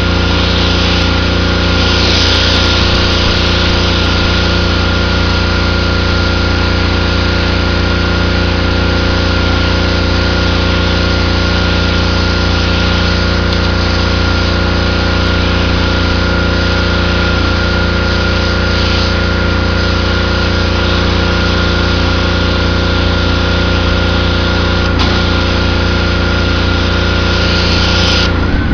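Pressure washer running steadily, its engine droning without a break under the hiss of the high-pressure spray jet striking concrete paving.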